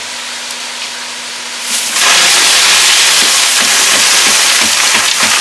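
Crushed ice pouring off the back of a truck into a plastic crate: a light pattering hiss that turns into a loud, dense rush of ice about two seconds in.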